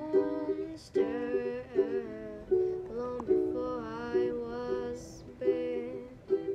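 Background music: a soft song with a singer over gently plucked string accompaniment.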